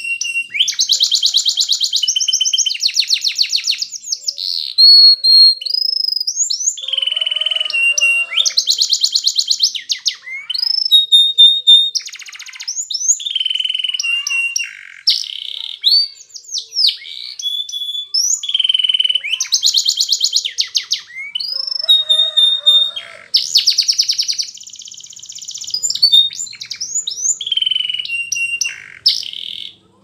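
Domestic canary singing a long, continuous song of fast rattling trills and rolls, broken by held whistled notes and quick up-and-down slurs, with short pauses between phrases.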